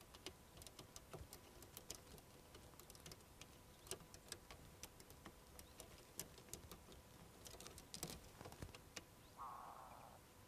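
Near silence: faint scattered ticks, with a short soft rushing sound near the end.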